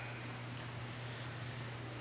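Quiet room tone: a steady low hum under an even hiss, with no distinct sound events.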